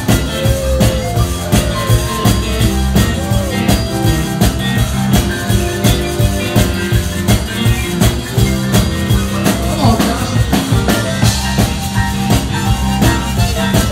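Live band playing an upbeat number: electric keyboard over a drum kit keeping a steady beat, with a moving bass line underneath.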